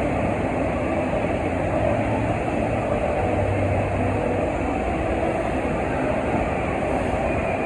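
Steady rush of pumped water shooting up the FlowRider's sheet-wave surface, with a low pump hum underneath that comes and goes.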